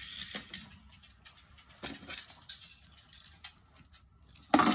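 A few faint clicks of small toys being handled, then, near the end, a sudden loud clatter as a die-cast toy car is dropped into a plastic spiral-ramp storage bucket and rattles down inside it.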